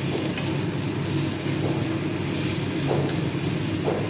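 Radish greens sizzling as they fry in mustard oil in a steel wok, stirred with a metal spatula that scrapes across the pan a few times, over a steady low hum.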